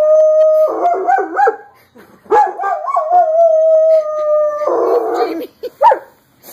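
German Shepherd howling, set off by fire engine siren sounds. There are two long howls, each held on one steady note and then breaking into a wavering warble, with a short yip near the end.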